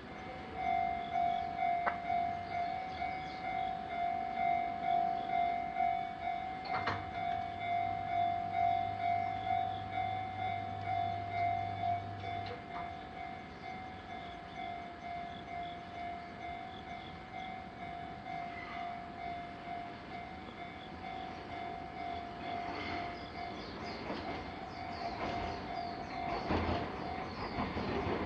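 Japanese level-crossing alarm ringing a steady electronic bell tone in regular pulses. A low hum joins it for several seconds in the middle, and near the end an approaching train's wheels clatter louder and louder.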